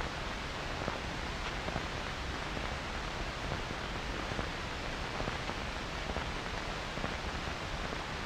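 Steady background hiss of an old film soundtrack, with no distinct sound events.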